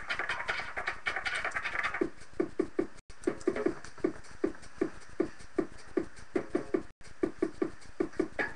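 Music playing with a steady thumping beat, about two or three beats a second, picked up through a webcam microphone. The sound cuts out briefly twice.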